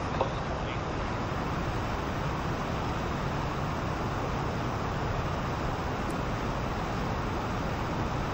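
NASA Space Launch System five-segment solid rocket booster firing on a horizontal static test stand: a steady, unbroken roar of rocket exhaust, heavy in the low end.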